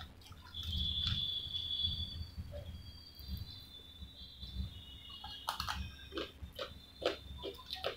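Mouth sounds of eating french fries: chewing with sharp clicks and short crackles, most of them in the second half. A high thin steady tone sounds twice in the first half.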